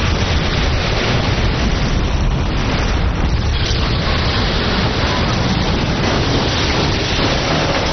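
Dramatized volcanic eruption sound effect: a loud, continuous dense roar with a heavy deep low end, holding steady throughout.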